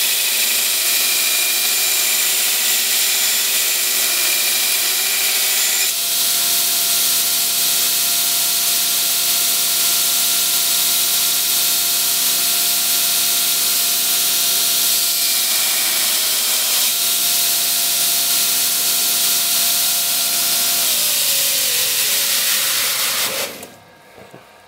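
Belt grinder running with a steel knife blade pressed against a coarse 36-grit belt on the flat platen, a loud steady grinding hiss over the motor's hum as the bevel is ground. Near the end the motor's pitch falls as it winds down and the sound dies away.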